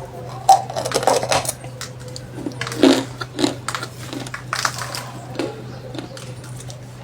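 Crunching of something crisp: irregular crunches and crackles, the loudest about a second in and just before three seconds in, over a steady low hum.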